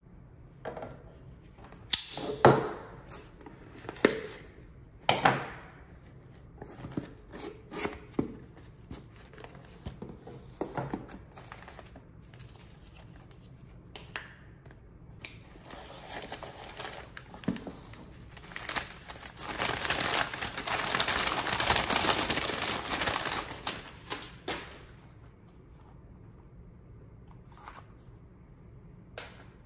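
Knife box and packaging being handled and opened: a string of sharp knocks and clicks, then about five seconds of continuous rustling and tearing of the wrapping.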